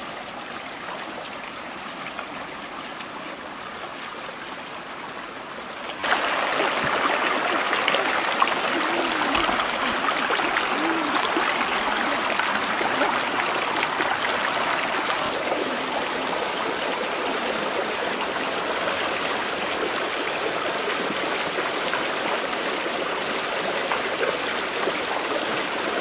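Shallow stream running over rocks, a steady rush of water that becomes abruptly louder about six seconds in.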